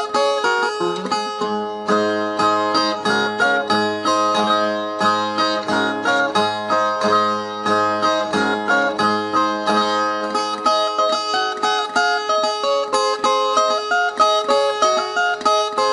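Instrumental music on plucked strings: quick picked notes running without a break, over a lower bass line that comes in about a second and a half in and drops out near eleven seconds.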